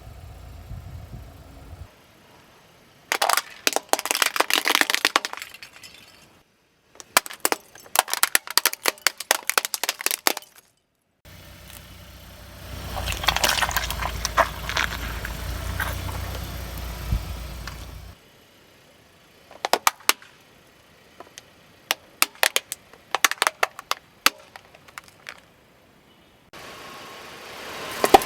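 Objects cracking and crunching as a car's tyres roll over and crush them, in several separate runs of rapid sharp crackles and snaps, with the low rumble of the car rolling in between.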